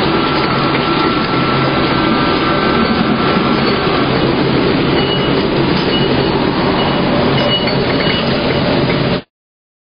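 Grape sorting machine running: a loud, steady mechanical rattle and clatter as grapes pass over its steel bar grate. It cuts off abruptly about nine seconds in.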